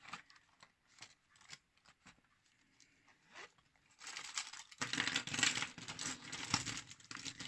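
Handling noise: a few light clicks and taps, then about four seconds in a continuous rustling and crinkling, like things being moved and unwrapped on a desk.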